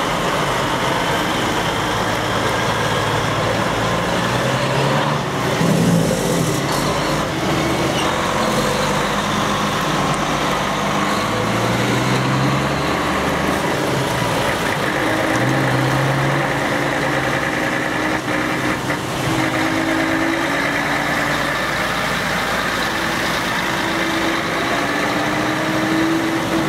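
Diesel engines of truck tractor units, a DAF XF and Volvo FHs, running as the trucks pull away slowly one after another, their engine notes rising several times as they move off.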